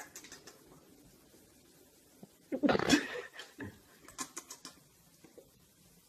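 Lip-smacking kisses on a baby: clusters of quick wet smacks near the start and again about four seconds in, with one louder, longer sound about two and a half seconds in.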